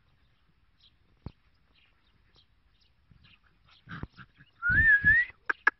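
Tibetan mastiff puppies at play: near the end one gives a short, loud, wavering yelp, followed by a quick run of sharp high yips. A faint knock comes about a second in.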